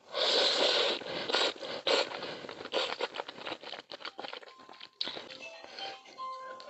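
Plastic food packaging being torn open and rustled, with scraping and rapid clicks, loudest in the first second; a few short ringing clinks near the end.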